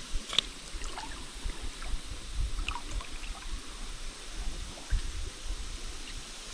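Shallow creek water trickling and gurgling, with a few small clicks and light splashes scattered through.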